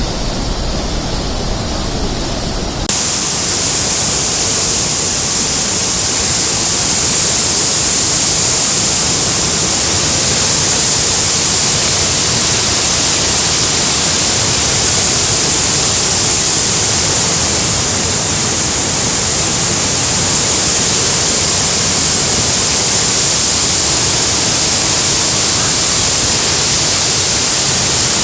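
Loud, steady rushing of water, with no rhythm or break. It changes abruptly about three seconds in, becoming slightly louder and hissier.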